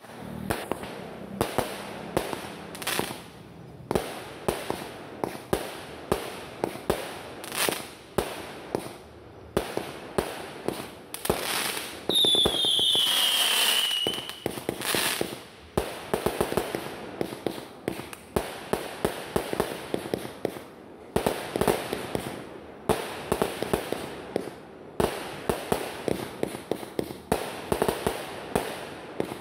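Aerial fireworks bursting overhead: a steady series of sharp bangs and pops, a couple each second. About twelve seconds in, a loud shrill whistle slides down in pitch for a second or two.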